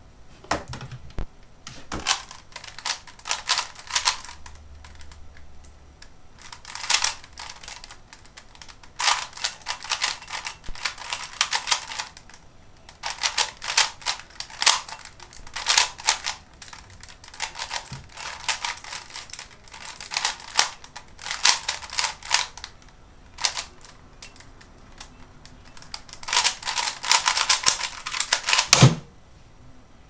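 Plastic 3x3 Rubik's cube (Type C DIY) being turned fast in a timed speedsolve: rapid clattering clicks of the layers in bursts, broken by short pauses. A thump comes near the end as the solve finishes.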